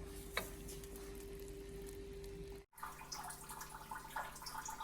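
Quiet kitchen room tone with a faint steady hum and a small click near the start. The sound cuts out completely for a moment about two and a half seconds in, then returns with a different, lower hum and a few light ticks.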